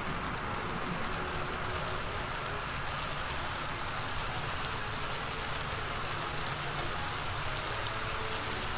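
HO scale model freight train rolling past close by. The small wheels of the boxcars make a steady, even clatter and rumble on the track.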